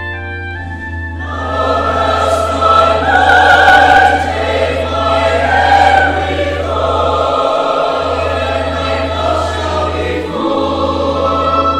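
Choir singing with instrumental accompaniment; the voices come in about a second in over a held low bass note.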